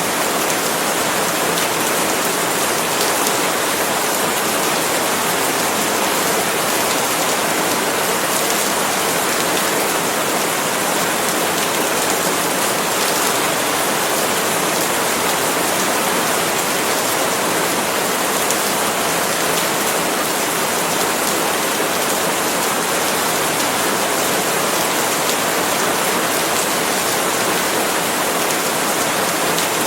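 Steady, heavy rain falling on palm leaves, an even unbroken wash of drops without pauses or thunder.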